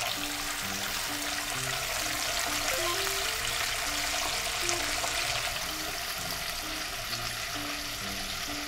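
Large pieces of starch-coated chicken deep-frying in hot oil in a tempura pot: a steady, busy sizzle of bubbling oil, with quiet background music underneath.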